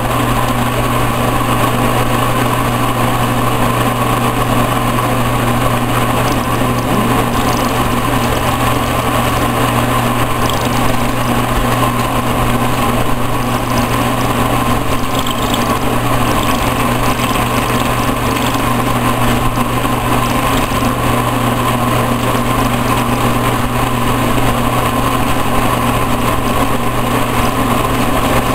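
Milling machine running steadily at about 1400 rpm, its cutter taking a pass along the workpiece, with a constant low hum and a steady whine.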